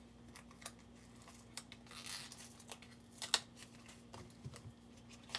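Hands tearing and crinkling open a blind-bag pack of collectible pin-back buttons: scattered small clicks and crinkles, a longer tearing rustle about two seconds in and a sharp click a little after three seconds. A faint steady hum runs underneath.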